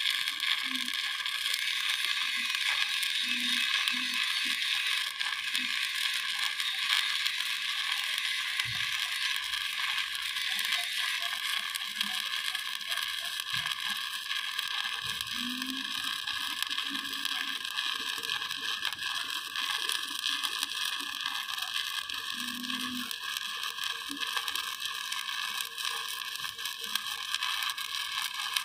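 Stick (shielded metal arc) welding electrode burning a steady crackling arc against steel plate.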